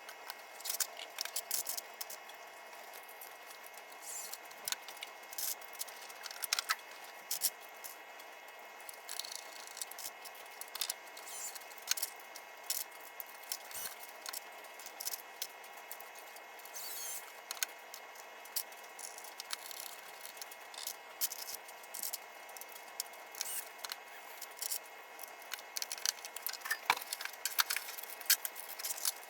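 Sped-up sound of small pinball playfield parts being handled and fitted: rapid, scattered clicks, clinks and rattles of small metal and plastic parts, over a faint steady hum.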